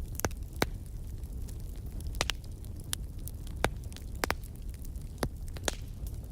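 Fireplace fire burning with a steady low rumble of flames and sharp crackles and pops, about ten of them at irregular intervals, a couple in quick pairs.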